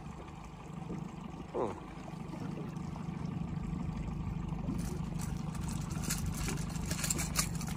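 Boat motor running steadily with a low hum, with a run of sharp clicks and crackles building from about five seconds in.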